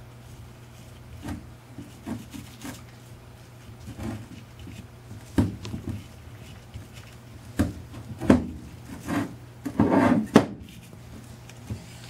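Gloved hand rubbing wet furnace mortar onto a nichrome-wire-wound iron barrel, with irregular knocks and scrapes as the barrel shifts on a wooden tabletop. The longest, loudest rub comes about ten seconds in. A steady low hum runs underneath.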